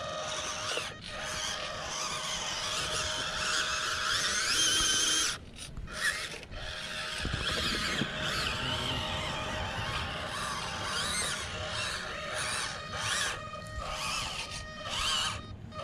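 Electric motor and plastic drivetrain gears of a 1:18 scale EazyRC 4x4 RC crawler whining as it crawls over rough dirt, the pitch rising and falling with the throttle. The sound drops out briefly twice, about five and six seconds in.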